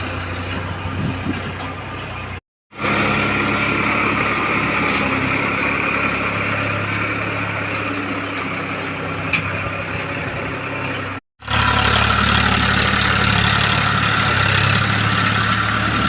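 Tractor engine running steadily, a loud even hum, cut off abruptly for a moment twice: about two and a half seconds in and again around eleven seconds.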